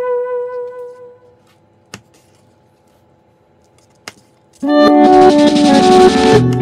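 Background music: a held keyboard chord fades out, then a pause broken by two short clicks, then upbeat band music kicks in loudly about two-thirds of the way through.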